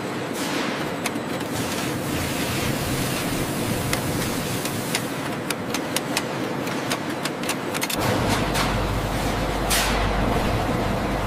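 Hide-processing machinery running: steady mechanical noise with a scatter of sharp clicks in the middle, and a deeper low rumble joining about eight seconds in as a roller machine feeds a hide through.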